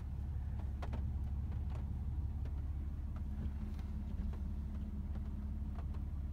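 Car interior noise: a steady low rumble from the car's engine and road, with a few faint scattered clicks.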